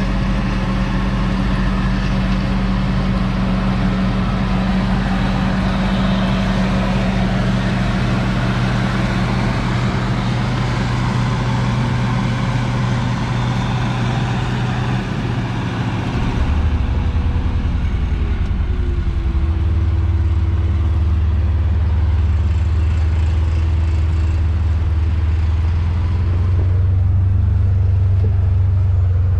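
Combine harvester running steadily while harvesting soybeans. About halfway through, its engine note shifts lower and then holds steady.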